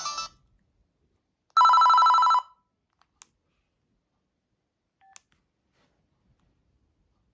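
Panasonic EB-G60 mobile phone's speaker playing a loud, rapidly trilling two-tone ring for about a second, just after the previous melody ringtone cuts off. Then only a few faint clicks and short quiet beeps, like keypad presses.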